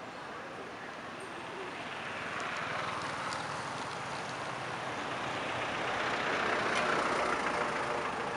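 A road vehicle passing by: a steady rush of road noise that swells for several seconds, peaks near the end and then fades.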